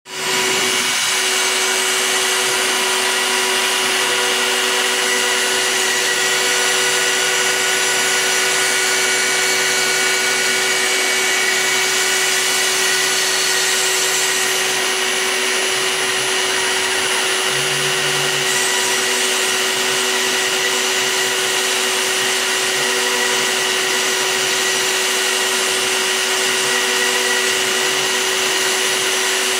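High-speed spindle motor of a home-made CNC router running with a steady whine while a small end mill cuts a pocket into a wooden board. Fainter low tones switch on, change and stop at times as the machine's axes move.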